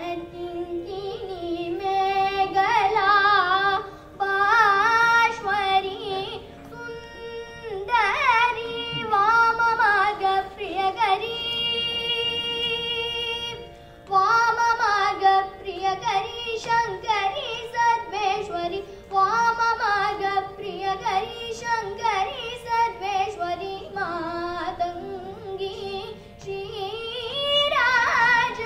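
A young girl singing a Carnatic krithi solo, long phrases of gliding, ornamented notes with short breaths between them and one long held note about halfway through, over a steady drone.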